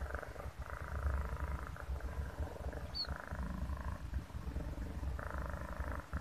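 Domestic cat purring steadily while being stroked, close to the microphone, the rumble swelling and easing in long alternating phases.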